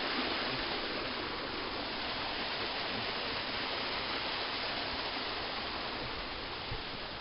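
Waterfall rushing, white water pouring steadily over rocks in a mountain stream gorge, easing slightly in loudness near the end.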